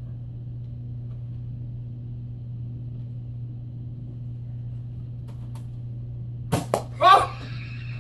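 Steady low hum, then about six and a half seconds in a Nerf blaster firing foam darts: two sharp snaps about a quarter second apart, followed right away by a short yelp.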